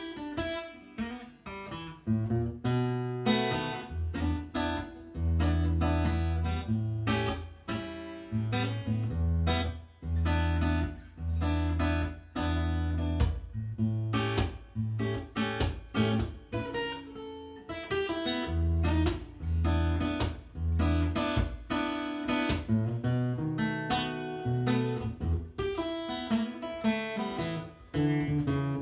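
Yamaha APX3 acoustic-electric guitar played in an even rhythm: strummed and picked chords over deep, repeated bass notes.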